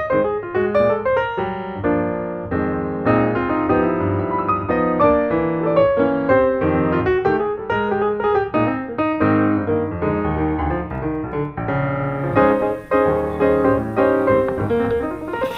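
Background piano music: a lively, busy keyboard melody with many quick notes.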